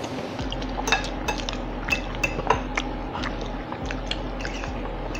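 Forks clinking and scraping against plates in irregular sharp clicks while food is picked up and eaten.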